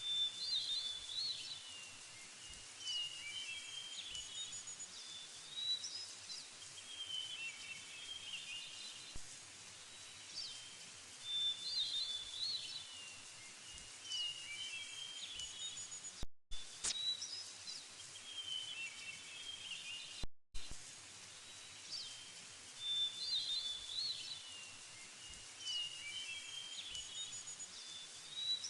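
Birds chirping and calling in short repeated phrases over a steady background hiss, a nature ambience track, broken by two brief dropouts to silence about 16 and 20 seconds in.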